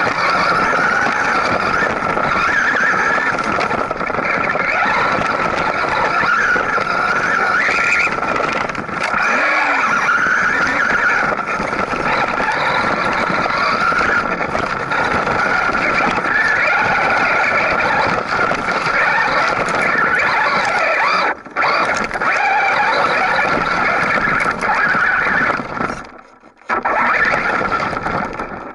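Traxxas Rustler VXL's Velineon brushless motor and drivetrain whining at speed, with the tyres churning over dirt and gravel, heard close-up from a camera riding on the truck. The sound drops out briefly about three quarters of the way through, cuts again near the end, and then falls off.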